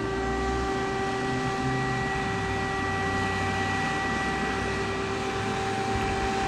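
Air raid siren sounding an alert, holding one steady tone.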